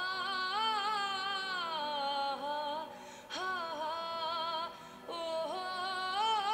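A woman singing a slow song in long, held notes that glide and waver, with short breaks about three seconds in and again about five seconds in.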